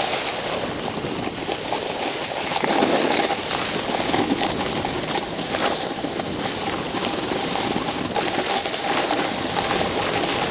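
Steady hiss and scrape of sliding downhill over choppy, tracked-up snow, mixed with wind rushing over the phone's microphone.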